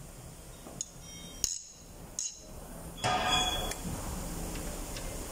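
Steel socket tools clinking against the engine during cylinder head bolt removal: three short, sharp ringing clinks, then a louder ringing metal clatter about three seconds in.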